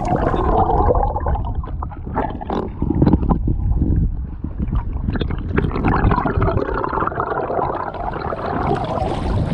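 River water rushing and splashing around a canoe carried along by a fast current, with many short knocks and splashes through it.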